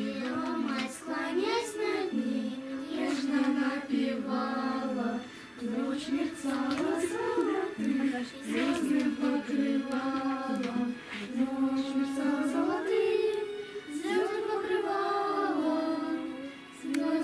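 A group of children singing a Christmas song together from song sheets, in sung phrases with short pauses for breath between them.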